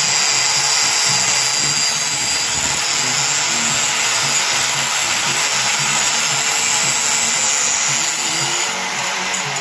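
Skil angle grinder running at speed with its disc grinding the steel edge of a splitting maul: a steady whine over a harsh grinding hiss. Near the end the level eases and the whine dips in pitch.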